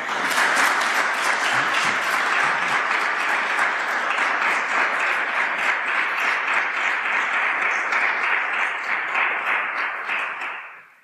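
Audience applauding steadily, dense clapping that dies away near the end.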